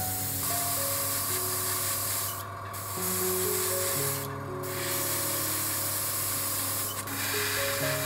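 Gravity-feed airbrush spraying paint onto a small plastic model part, a steady high hiss of air and paint that stops briefly twice a few seconds in. Soft background music plays underneath.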